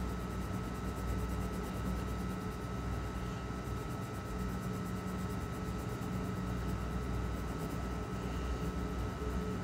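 Steady hum and hiss of background noise, with a faint high tone.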